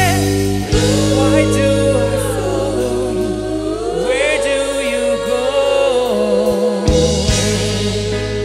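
Live rock band and choir: several voices singing sustained, wavering harmonies over held low keyboard and bass notes.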